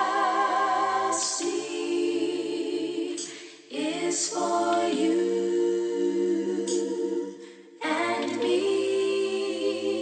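Background music: a hip-hop track's sung vocal interlude of long held notes, layered like a choir, with no beat. It breaks off briefly twice, at about four and eight seconds in.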